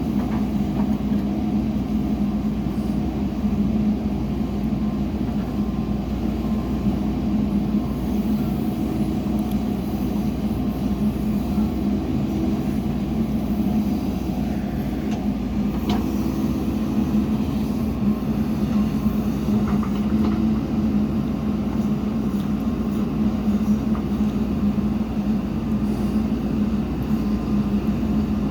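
Heavy diesel engine of earthmoving machinery running steadily, with one sharp knock about midway.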